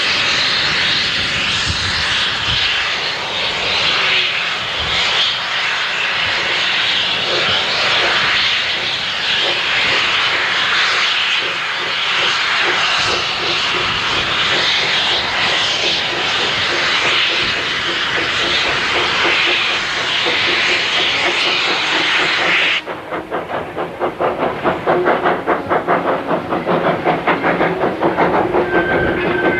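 Small tank steam locomotive letting off steam with a loud, steady hiss that cuts off suddenly about three-quarters of the way through. It then starts away with regular exhaust chuffs, a few a second.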